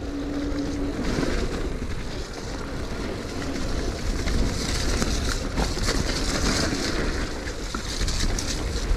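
Electric mountain bike ridden along a muddy trail: a steady rumble of tyres churning through slop and the bike running over rough ground, with wind buffeting the microphone. A brief steady hum sounds in the first second, and a hiss grows louder around the middle.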